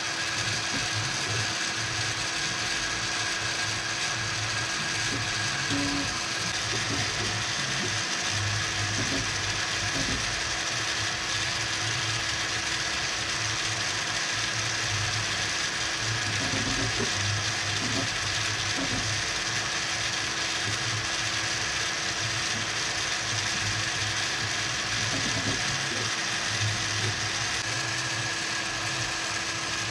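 3D printer running a print: its stepper motors whir in short, changing moves over the steady hum of its cooling fans.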